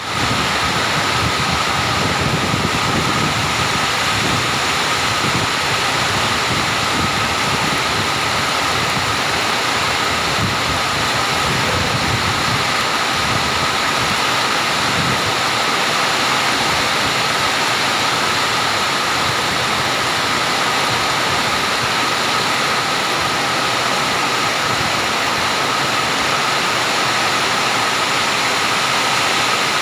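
Heavy rain pouring down in a storm: a steady, loud rushing hiss.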